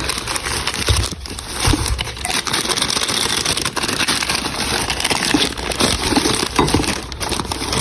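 Rustling and crinkling of plastic packaging as a newly bought household item is handled, with a few light knocks and clicks.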